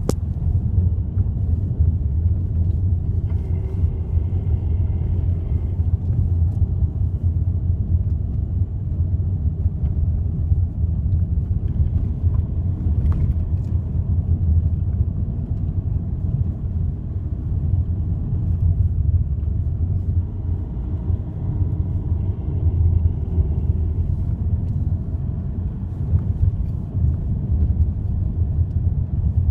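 Volkswagen Golf 1.6 running with a steady low rumble, the strange noise that its owner is trying to track down. A faint higher whine comes in over the rumble twice, a few seconds in and again about two-thirds of the way through.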